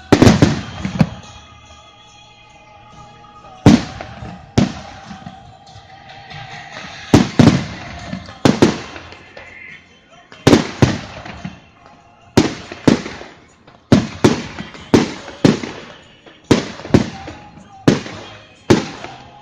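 Fireworks display: aerial shells bursting in sharp, loud bangs, a few spaced bangs at first, then a quickening run of about two bursts a second. Music plays faintly underneath between the bangs.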